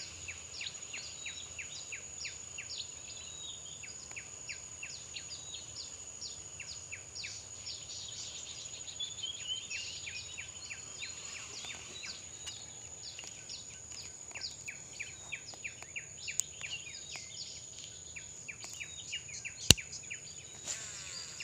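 Outdoor insect and bird chorus: a steady high-pitched insect drone with many short bird chirps repeating quickly. A single sharp knock close to the microphone near the end.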